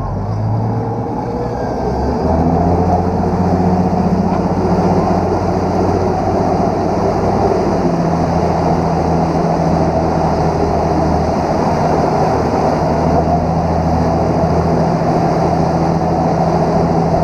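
Motorboat engine running under way, its note stepping up about two seconds in as the boat picks up speed, with a steady rushing noise over it.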